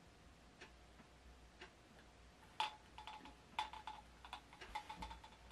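A clock ticking quietly about once a second. From about halfway through, louder clicks and rustles from handling join the ticks.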